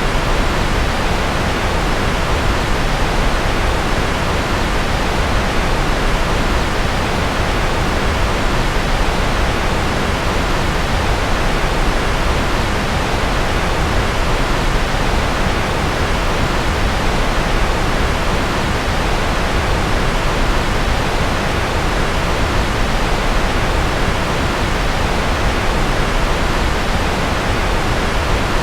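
Steady, unchanging rushing noise spread evenly from deep rumble to hiss, with no breaks or rhythm: a loud continuous white-noise sleep track billed as rocket noise.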